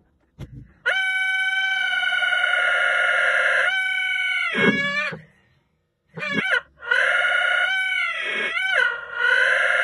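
Buzzy held tone from an audio app's scrub playback looping a tiny slice of a recording while the playhead is held in place. It comes as two long holds of several seconds each, and the pitch swoops whenever the playhead is nudged.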